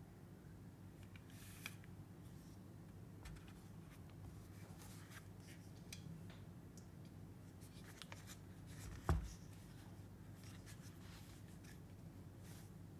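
Custom 65% keyboard with an aluminum plate and Krytox-lubed Cherry retooled switches being typed on: scattered soft keystroke clicks, with one louder low thud about nine seconds in, over a faint steady hum.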